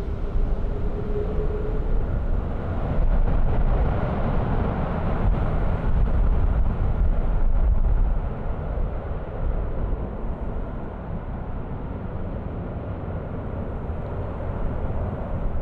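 Distant jet engine rumble of an Airbus A330-200, swelling for several seconds, then settling to a lower, steadier rumble about eight seconds in.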